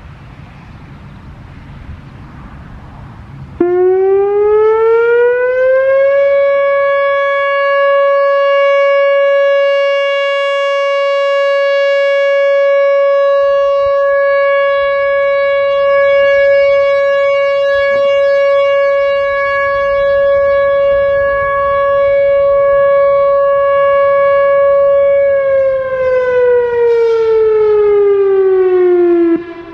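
Whelen WPS-4004 electronic outdoor warning siren sounding a steady alert during a routine test. It starts about three and a half seconds in and winds up over a couple of seconds to a steady 560 Hz tone. The tone holds loud for about nineteen seconds, then winds down and stops near the end.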